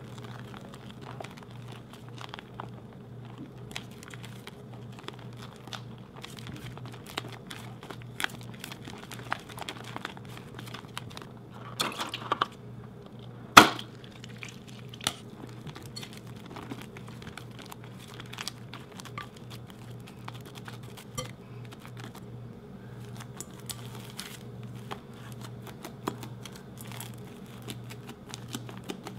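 Foamy slime being stirred and kneaded by hand in a glass bowl, giving a dense run of small crackles, pops and squishes. One sharp snap comes about halfway through, over a steady low hum.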